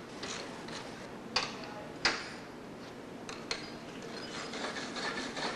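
Hand wire brush scrubbed back and forth over the face and edge of a metal welding coupon to clean it before welding: a steady scrubbing with a few sharp clicks, cutting off at the end.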